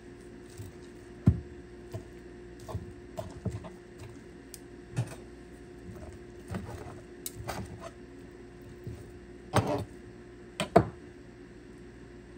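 Kitchen utensils and cookware being handled: irregular knocks and clatters, the loudest a little over a second in and a pair near the end, over a steady low hum.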